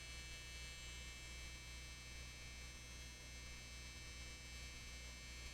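Faint, steady electrical mains hum with a light buzz, and nothing else happening.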